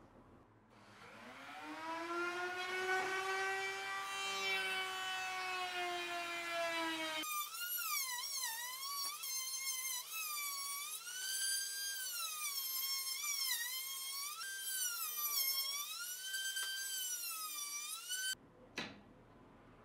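Table-mounted router with a bearing-guided edge bit spinning up with a rising whine, then running steady. Partway through it is cutting the edges of a wooden frame, its pitch dipping and recovering again and again as the wood is fed into the bit. The motor stops abruptly near the end, followed by a single click.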